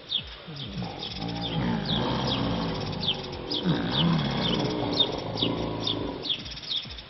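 American alligators bellowing: deep, rumbling calls that start about a second in and run on for several seconds, the call alligators use to one another in the mating season. A bird chirps over it throughout, a short falling chirp two or three times a second.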